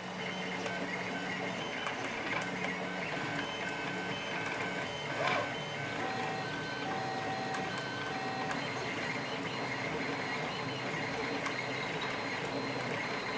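Printer running, its motors giving steady whining tones that hold and then jump to a new pitch every second or so. There is a brief louder knock about five seconds in.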